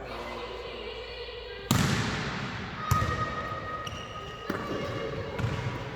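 A volleyball struck and bouncing on a hard court, a sharp smack about two seconds in and further hits about a second and then three seconds later, each ringing on briefly, with voices in the background.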